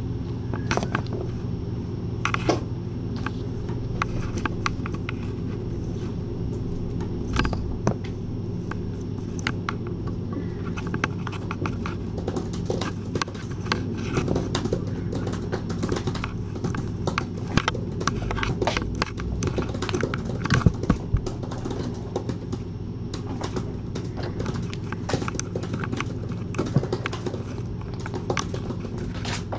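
Typing on an Apple MacBook keyboard: irregular key clicks, sparse at first and much busier from about twelve seconds in, over a steady low hum.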